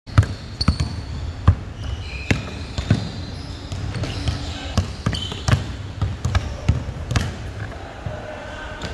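Basketball bouncing on a hardwood gym floor, dribbled in an uneven rhythm of about one to two bounces a second, each bounce ringing in the hall.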